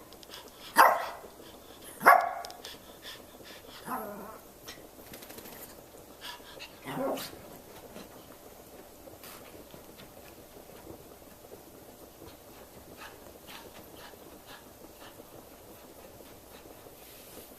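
A dog barking at a toy stuck out of reach under a couch: two sharp barks about one and two seconds in, then two softer barks around four and seven seconds.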